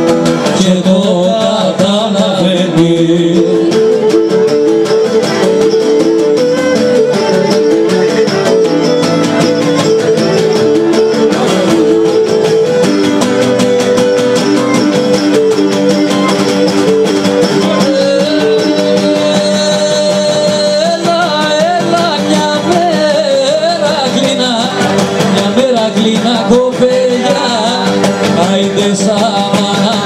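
Traditional Cretan folk music: a bowed Cretan lyra carries the melody over two Cretan laoutos picked in a steady rhythm, with a man singing part of the time.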